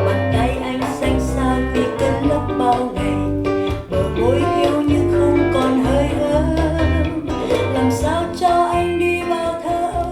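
A song with singing over guitar and a bass line, played back from a vinyl record on a turntable through Cambridge Evo One speakers.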